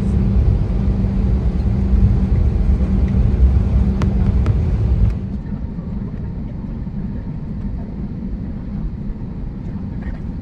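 Steady low rumble of a vehicle in motion, heard from inside, with a steady hum running through it. About five seconds in it drops abruptly to a quieter, duller rumble.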